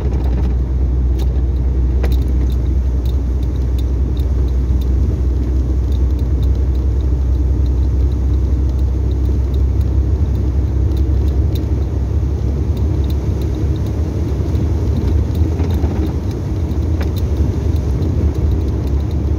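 Steady low drone of a truck's engine and its tyres on a wet highway, heard from inside the cab, with faint scattered clicks and rattles.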